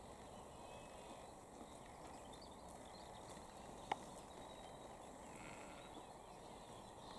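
Faint, steady outdoor background hiss, with a single sharp click about four seconds in.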